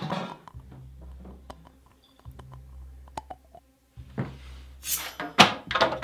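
Low steady room hum with a few faint clicks, then about four seconds in a run of loud rustling and scraping as someone gets up and moves past in a heavy coat.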